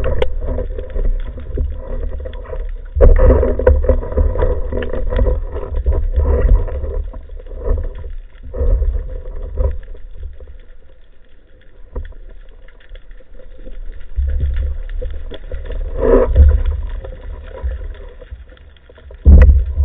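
Underwater sound picked up by a camera in a waterproof housing mounted on a speargun: a low, muffled rumble of water moving past the housing as the diver swims. It surges louder in the first few seconds and around sixteen seconds in, and gives a sharp loud burst just before the end.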